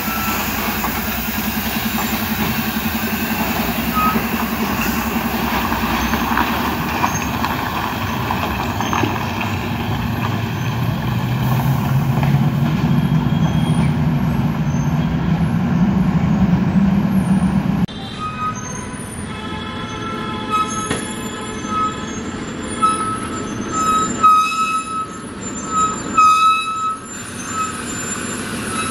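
A heavily loaded truck's diesel engine labours steadily, its low drone swelling louder toward the middle. Then the sound changes abruptly to a quieter scene with repeated short, high-pitched horn toots.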